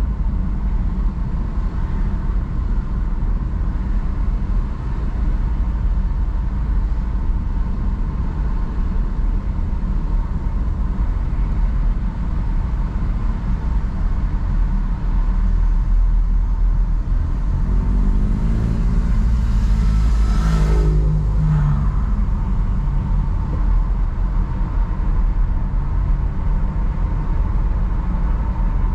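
Car driving along a road: steady low road and engine rumble. About two-thirds of the way through, another vehicle's engine swells up, passes close and fades.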